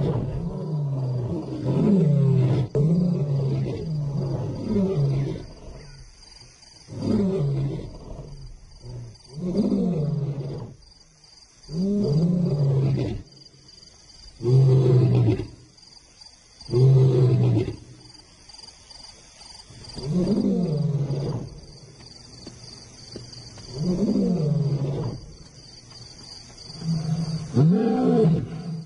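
Male lion roaring: a quick run of short calls in the first few seconds, then a series of about eight long roars, each falling in pitch, a couple of seconds apart.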